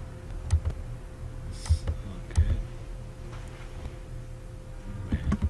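Computer mouse and keyboard clicks: a few separate clicks in the first two and a half seconds, then a quick cluster of keystrokes near the end. A faint steady hum runs underneath.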